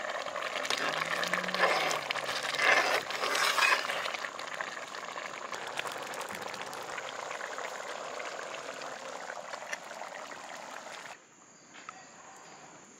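Thick squid masala bubbling and sizzling in a metal pot, with a ladle stirring and scraping through the gravy, loudest in the first few seconds. The sound drops to a much fainter bubbling about eleven seconds in.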